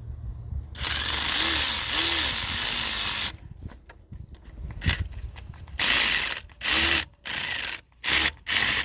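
Hand ratchet with a 10 mm socket clicking as it tightens the thermostat housing nuts: one long run of about two and a half seconds about a second in, then several short bursts near the end.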